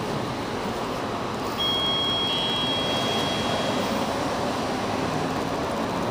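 A single electronic elevator chime rings once about a second and a half in, its tone fading over the next two seconds, over a steady mechanical hum.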